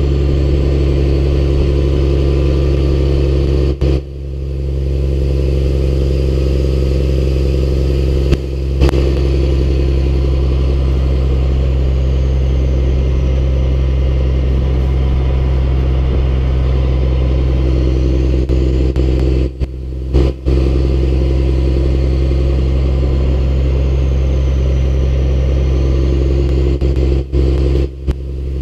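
Caterpillar diesel engine of a snowplow truck running steadily under load as the truck drives, a deep even drone with road and wind noise. The sound dips briefly about four seconds in and a few times near the end.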